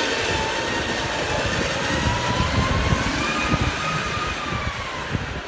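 Small three-wheeled delivery truck driving past close by, its small engine's pitch slowly rising and then falling as the sound eases off toward the end.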